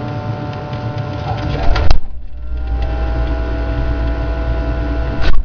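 Refrigerator's steady running hum, a low drone with faint steady tones above it. A sharp knock about two seconds in and another near the end.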